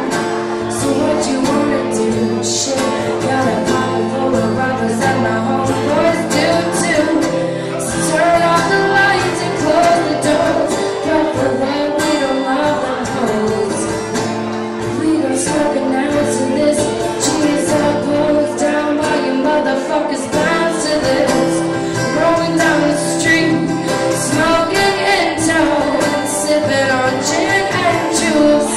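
A woman singing while strumming an acoustic guitar, a live solo song.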